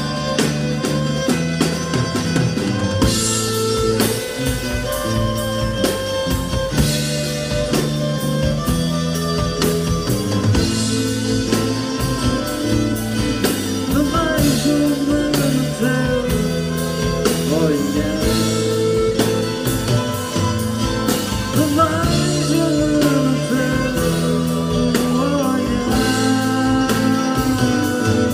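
Live rock band playing an instrumental passage: drum kit keeping a steady beat under electric guitar, bass and violin, with a lead line that bends in pitch.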